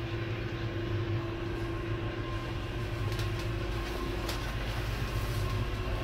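Steady low machinery hum on a frigate's bridge. A faint steady tone over it drops out about four seconds in and comes back slightly higher near the end, and there are a few faint clicks.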